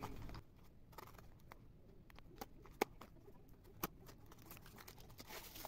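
Hobby knife slitting packing tape on a small cardboard box: faint scratching and scattered light clicks, with two sharper clicks about three and four seconds in.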